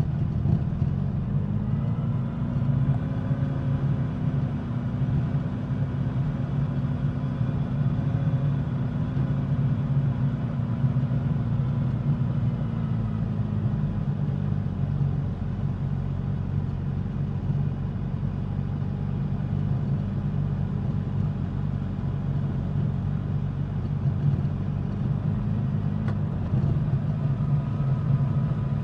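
Suzuki GSX-S1000's inline-four engine and exhaust running steadily while riding. The engine note rises a little early on, holds, eases off about halfway through and picks up again near the end.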